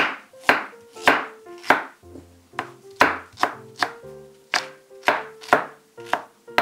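Chef's knife julienning peeled fresh ginger on a wooden cutting board: crisp, regular chops about two to three a second, each a sharp knock of the blade through the ginger onto the board. Soft background music with held notes runs underneath.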